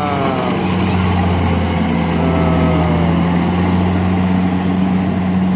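Combine harvester's engine running with a steady low hum. Two brief tones fall in pitch above it, one at the start and one about halfway through.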